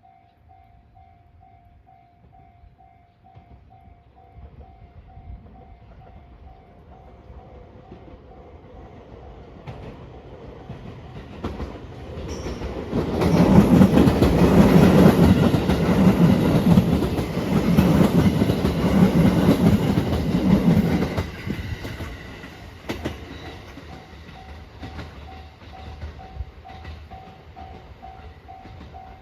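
Japanese level-crossing alarm ringing in steady repeated pulses. A passenger train draws near, passes loudly for about eight seconds with a rhythmic clatter of wheels over the rail joints, then fades away, and the crossing alarm can be heard again.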